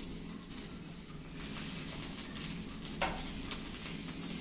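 Egg omelette sizzling in hot oil in a flat pan while wooden spatulas scrape underneath it to loosen it, with a sharp tap about three seconds in.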